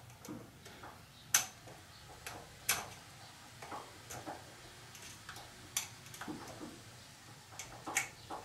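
Light, irregular metallic clicks and ticks from hand work on a coilover shock absorber's top end: a few sharper clicks a second or more apart, among fainter taps.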